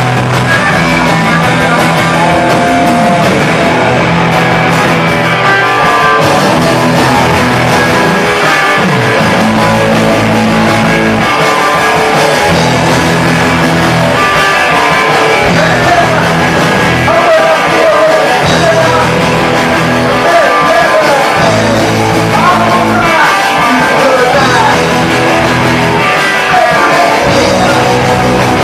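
Punk rock band playing loud, with electric guitar, the sound staying at a steady level throughout.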